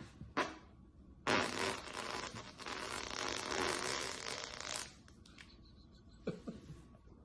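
A long, airy, sputtering fart about three and a half seconds long, starting about a second in, with a brief click before it and a short puff near the end.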